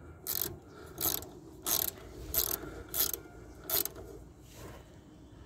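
A ratchet wrench worked back and forth in about six short, evenly spaced strokes, its pawl rasping on each swing, tightening a bolt during reassembly of the motorcycle's rear suspension; the last stroke is fainter.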